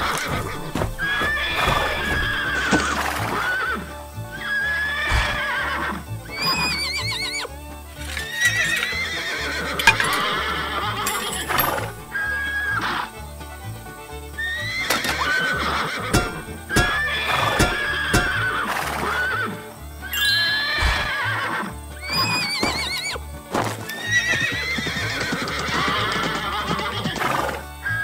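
Horses whinnying again and again, a wavering call every few seconds, over background music.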